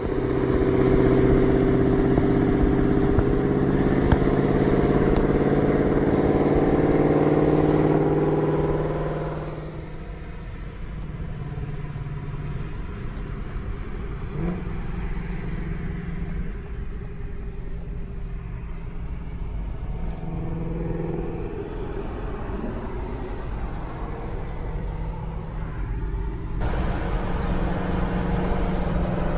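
Ford Mustang GT500's supercharged V8 cruising at highway speed alongside, a loud steady exhaust drone for about the first nine seconds. It then drops to a quieter hum of road and tyre noise with a faint engine note.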